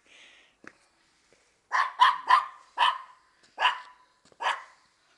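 Maltese dog barking during a chase game: six short, sharp barks beginning a little under two seconds in, the first three in quick succession and the rest more spaced out.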